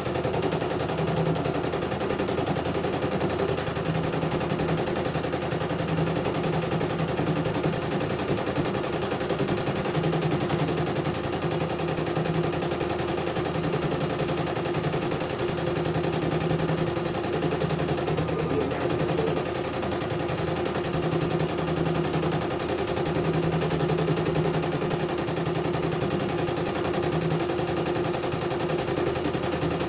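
CNY E900 computerised embroidery machine stitching a design: a steady, rapid clatter of the needle, with a low hum that comes and goes as the hoop is moved.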